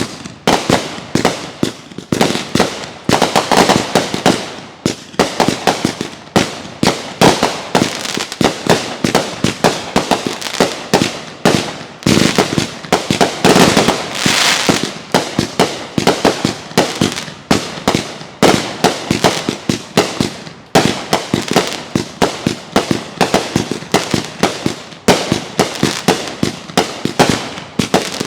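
Consumer fireworks going off in a dense barrage of bangs and crackles, many reports a second with no pause.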